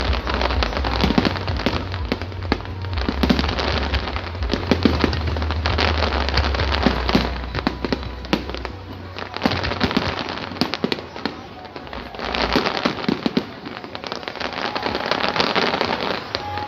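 Fireworks display: a dense, continuous crackling and popping of many bursting shells, with louder sharp bangs scattered through it, thinning briefly around twelve seconds in before picking up again.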